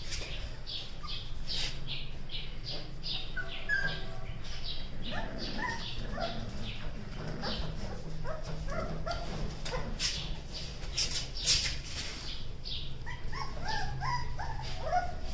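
Rottweiler puppies play-fighting, giving short high yips and whimpers in quick clusters, with clicking and scuffling on the concrete floor.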